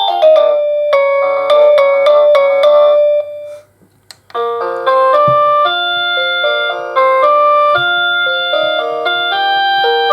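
AVANTEK D-3B wireless doorbell receiver playing its electronic chime melodies in quick piano-like notes. One tune ends a little over three seconds in, and after a short pause the next tune starts.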